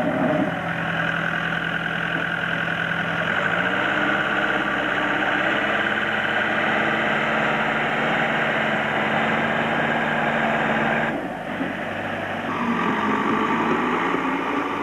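Backhoe loader's diesel engine running as it works earth with its front bucket; the engine note steps up about three seconds in and holds, then changes abruptly near the end to a lower, steadier run.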